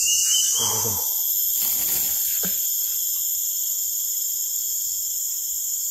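Steady, high-pitched chorus of forest insects, several layered drones running together without a break.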